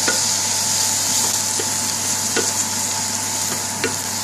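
Sliced onions, green chilli and coriander sizzling in oil in a metal frying pan while a wooden spoon stirs them, with a few light knocks of the spoon against the pan.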